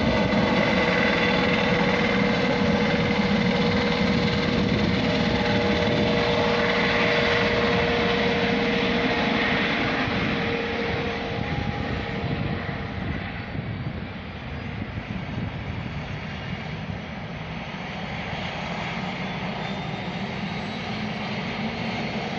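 Medical helicopter's engine and rotor noise overhead, steady with a high whine at first, then fading from about ten seconds in as the helicopter flies off.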